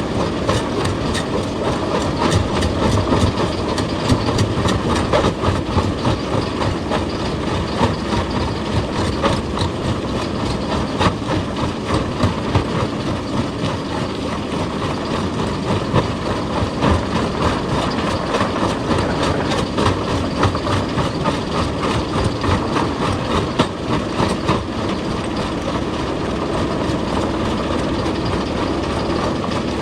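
Hydraulic excavator working rock: a steady engine rumble under a dense, uneven clatter of many small knocks.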